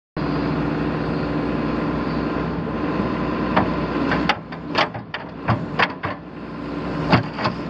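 Hitachi EX200-2 excavator's Isuzu 6BD1T six-cylinder turbo diesel running steadily. From about halfway through, a run of sharp metallic knocks and clanks comes over it, with two more near the end.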